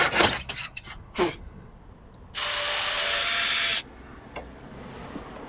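A few last hand-saw strokes through a wooden roof batten, then a cordless drill-driver runs once for about a second and a half, driving a screw into the batten, followed by a few light knocks.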